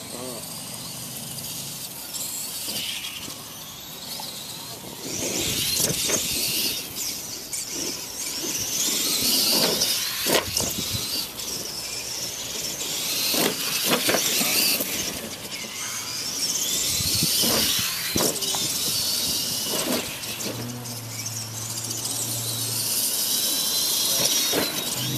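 Clod Buster RC monster trucks' electric motors and gear drives whining, the high pitch rising and falling as they speed up and slow down, with a few knocks along the way.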